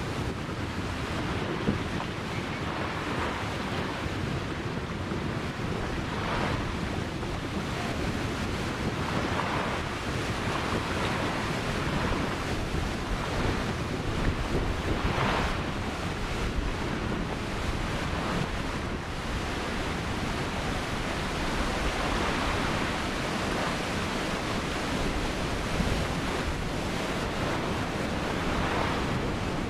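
Ocean surf: waves breaking and washing on the shore in a continuous wash, with swells every few seconds, and wind buffeting the microphone.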